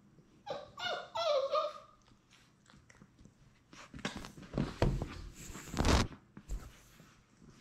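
A Labrador puppy gives a few short whimpering cries, then nuzzles and brushes against the camera, making loud scuffing and bumping noises on the microphone about four to six seconds in.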